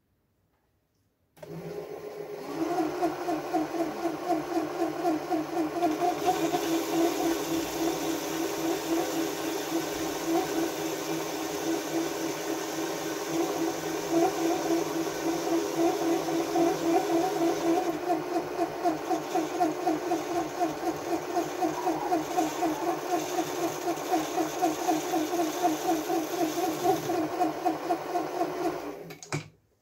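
Small benchtop metal lathe running with a metal part spinning in its three-jaw chuck: a steady motor whine with a fast, even warble. It starts about a second and a half in and stops just before the end.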